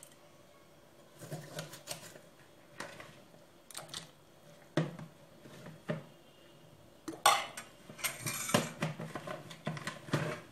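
Metal ladle and spoon knocking and scraping against a stainless steel pot of melon cubes, in irregular clinks, the loudest about seven seconds in.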